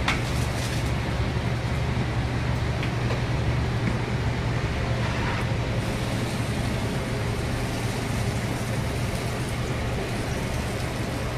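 Steady low drone of commercial kitchen ventilation. A few light clinks in the first second as butter is spooned into a steel sauté pan.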